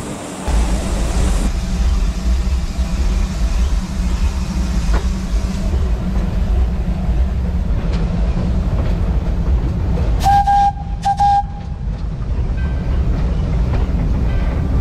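Cab of an 1882 Baldwin oil-fired narrow-gauge steam locomotive under way: a steady low rumble of the running locomotive. About ten seconds in, the steam whistle gives two short blasts.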